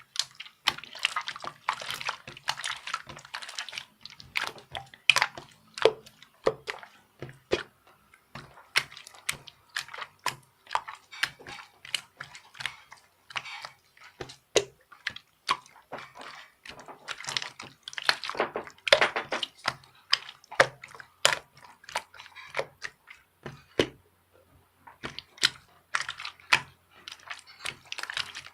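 A dense, irregular run of sharp, crisp clicks and crackles close to the microphone, pausing briefly twice.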